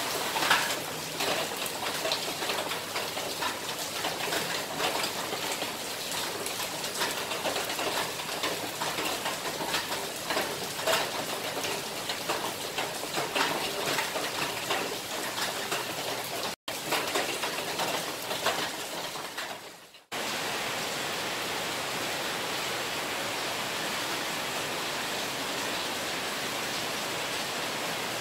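A rain shower falling on a paved alley: a dense patter of drops and splashes over a steady hiss. About 20 seconds in there is a cut, and from then on the rain is an even, steady hiss.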